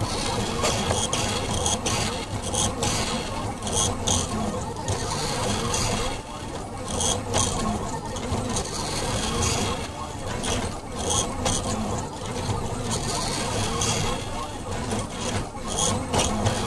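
Delta 3D food printer running: its stepper motors whine in short tones that glide up and down in pitch as the arms move the extruder head, with frequent clicks.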